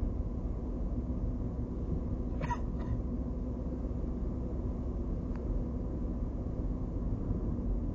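Steady engine and road noise inside a moving car's cabin, with a low hum underneath. About two and a half seconds in comes a short high-pitched sound, then a fainter one just after it.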